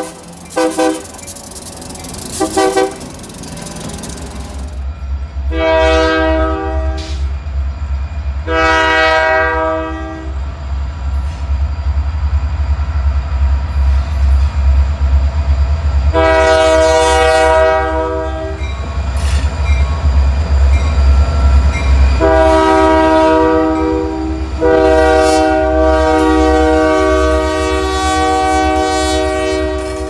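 Union Pacific diesel freight locomotive sounding its multi-chime air horn: a few short toots at first, then a series of long blasts, the last held about five seconds. Under the horn is the steady low rumble of the locomotive's diesel engine and the train rolling by.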